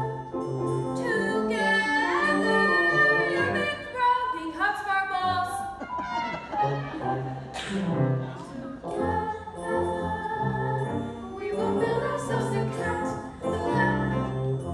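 Brass-led pit-orchestra music of a stage musical, an instrumental stretch of a show tune with a bouncing bass line.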